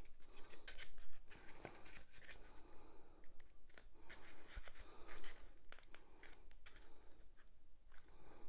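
Styrodur foam strips being handled and pressed together on a table: irregular scratchy rubbing with light clicks and taps of foam on foam.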